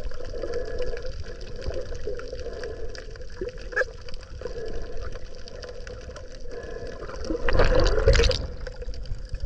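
Underwater sound picked up by a camera held in the water: a continuous rumble and water movement with a steady hum throughout, and a louder rush of water noise about seven and a half seconds in.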